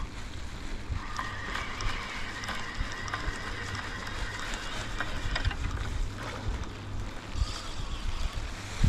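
Spinning reel being cranked to wind line in, its gears whirring for a few seconds and stopping about halfway through, over a low rumble of wind on the microphone.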